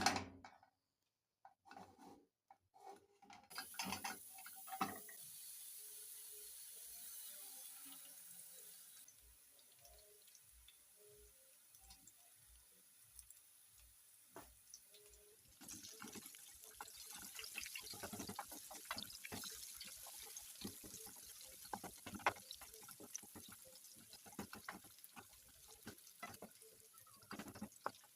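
Water running steadily into a bowl for a few seconds, then irregular splashing and swishing as dried omena are washed by hand in the water.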